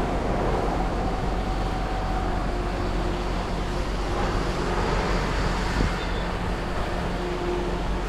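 Water rushing steadily down the start of a raft water slide, with a low steady hum underneath.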